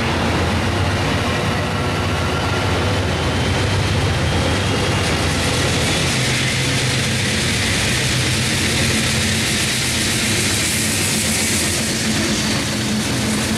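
Amtrak Pacific Surfliner train departing, with bilevel passenger cars rolling steadily past and a low engine hum underneath. Near the end, the GE P42DC diesel locomotive pushing at the rear passes close, and the rolling hiss grows louder as it comes up.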